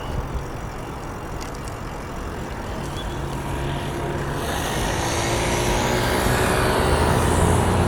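Car driving on a city street: a steady low engine hum with tyre and road noise. The noise grows louder and hissier through the second half.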